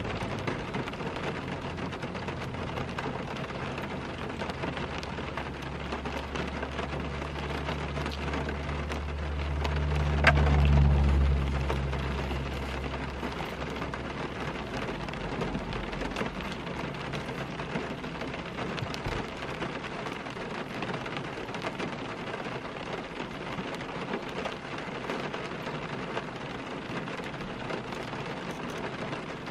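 Steady rain on a car's roof and windows, heard from inside the car. About ten seconds in, a low rumble swells and then fades.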